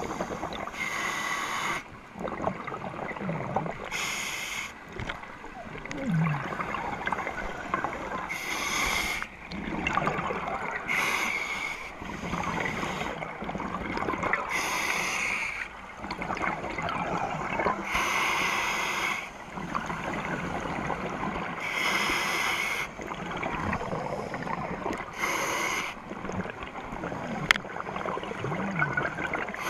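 Scuba divers breathing through their regulators underwater, picked up through a GoPro's housing: a rushing burst of exhaled bubbles about every three to four seconds, with quieter gaps between.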